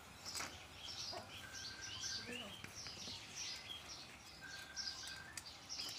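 Faint chirping of small birds: many short, quick calls, with two longer steady whistled notes, one after about a second and a half and one about four and a half seconds in.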